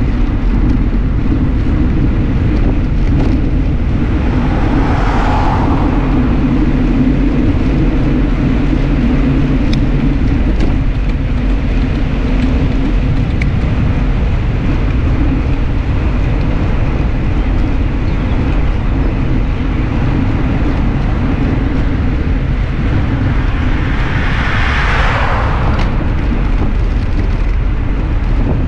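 Steady wind rush on the handlebar-mounted action camera's microphone from riding a bicycle along a paved road, with tyre hum underneath. Twice, about five seconds in and near the end, a motor vehicle passes with a whoosh that swells and fades.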